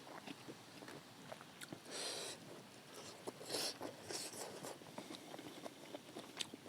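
A person eating close to the microphone: faint chewing with scattered small mouth clicks and smacks, and a few brief soft slurps.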